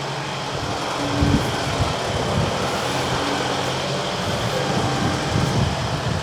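Small skid steer's engine running steadily while it cleans out a cattle pen, with strong wind buffeting the microphone in low rumbling gusts.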